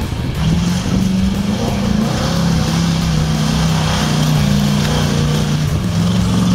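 Engine of a lifted Chevrolet S-10 Blazer on large mud tires revving hard as it drives through a mud bog pit, its pitch rising and falling as the driver works the throttle.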